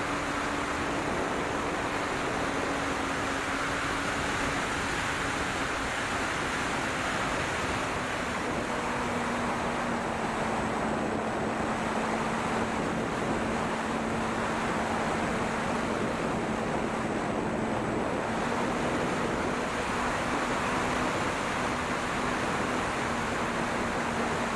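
Air rushing over an onboard camera on an E-flite P-47 electric RC warbird in flight, with the steady hum of its motor and propeller. The hum sags slightly lower in pitch over the first ten seconds or so, then holds steady.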